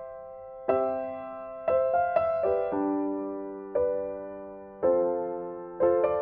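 Background music: a slow, gentle piano piece, with soft chords struck about once a second and left to ring and fade.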